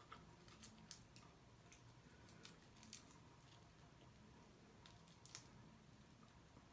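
Faint eating sounds: chewing and wet mouth smacking, with a few soft clicks scattered through.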